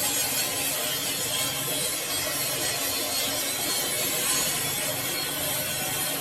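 Lathe running while cutting a steel shaft, a steady scraping hiss from the tool over a faint machine hum.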